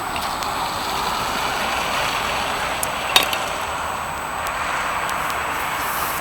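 Steady hiss of road traffic passing on the nearby motorway, with one sharp metallic click about three seconds in.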